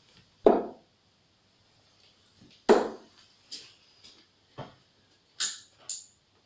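Three darts hitting a dartboard about two seconds apart, each a sharp thud, the second the loudest. Near the end come two brief high scratchy sounds as the darts are pulled out of the board.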